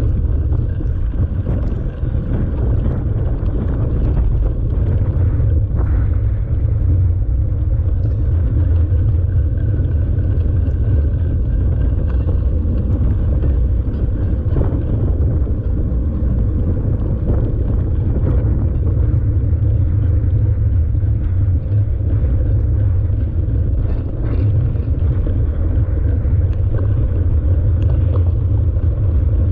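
Mountain bike being ridden on a beach course, heard through a camera mounted on the bike: a steady, loud low rumble of wind on the microphone and riding vibration.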